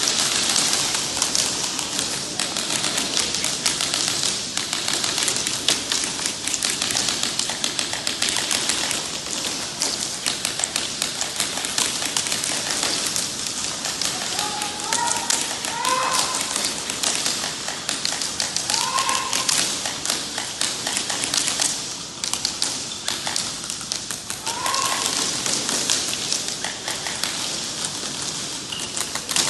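Airsoft guns firing in rapid, continuous clatter, many sharp ticks a second, as BBs are shot during a SpeedQB match. A few short shouted calls break through about halfway in and again near the end.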